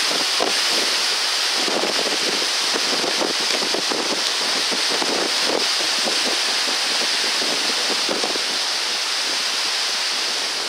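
Heavy tropical-storm rain pouring steadily and splashing into standing floodwater on a lawn, with wind gusting against the microphone.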